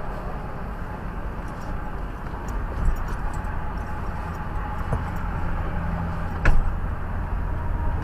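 Steady low rumble of freeway traffic heard from a stopped car, with two short knocks, the louder one near the end.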